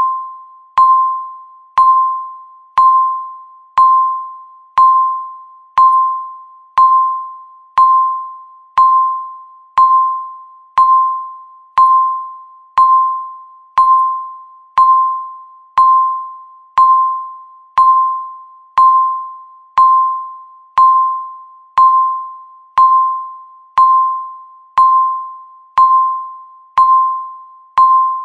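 Countdown timer beep sounding once every second: a short mid-pitched electronic tone that starts sharply and fades out before the next one, in an even, unchanging series.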